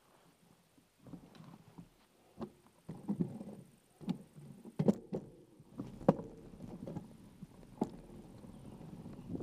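Bicycle rattling and knocking over a bumpy sandy dirt track, with irregular sharp jolts, the loudest near the middle. Wind noise on the microphone builds toward the end.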